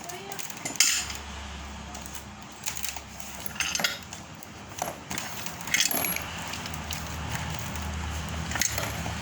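Metal parts of a meat grinder converted into a feed pellet machine being handled, clinking and knocking about half a dozen times over a low steady hum that starts about a second in.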